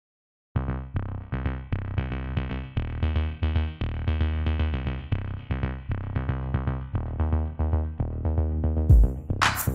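Electronic background music with a steady drum-machine beat and synthesizer, starting abruptly about half a second in after silence, with sharper, brighter drum hits near the end.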